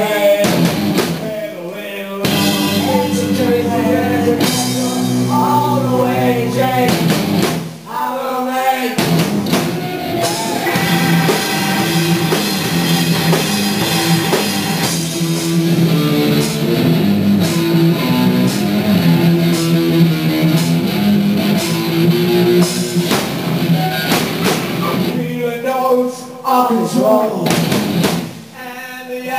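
Live rock band playing loudly: drum kit, electric guitar and a Roland VK-8 organ holding sustained chords through the middle, with vocals at the start and again near the end.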